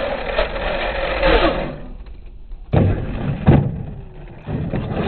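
Electric motor and drivetrain of a radio-controlled monster truck whining under throttle, the pitch wandering up and down. It goes quiet for about a second while the truck is in the air off a jump. Then come two heavy thumps about a second apart as it lands and tumbles, and near the end the motor whines again with a rising pitch.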